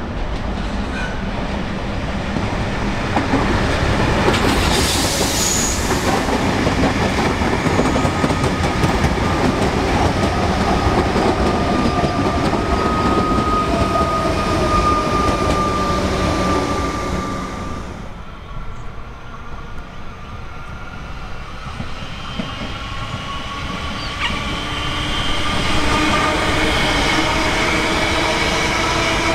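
Melbourne electric suburban trains passing at speed: wheels and running gear making a dense, steady noise with a high tone ringing above it. Partway through the level drops briefly, then another electric train passes with its traction motors giving a rising whine of several tones.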